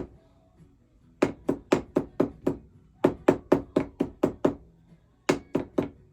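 A hammer tapping a gold-and-silver braided wire ellipse to flatten it, in three quick runs of sharp strikes at about four a second with short pauses between.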